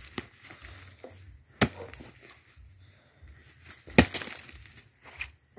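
A hoe chopping into soil and leaf litter in spaced strikes, the loudest about a second and a half in and again about four seconds in.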